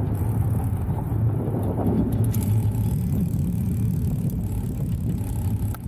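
Steady low rumble of a motor vehicle running, with no clear change in pitch.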